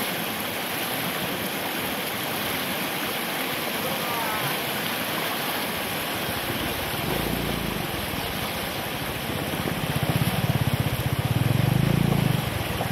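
Fast-flowing floodwater rushing over rocks, a steady noisy wash. From about seven seconds in, a low rumble joins it and grows louder near the end.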